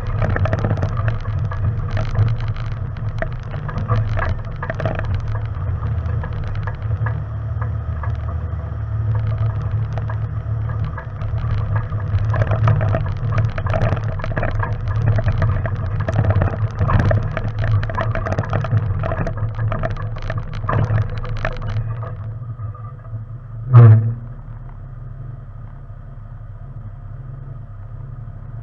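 Off-road vehicle driving over a rocky gravel trail: a steady engine hum with frequent knocks and crunching from stones under the tyres. About three quarters of the way through it comes to a stop and the engine idles more quietly. A single loud thump follows shortly after.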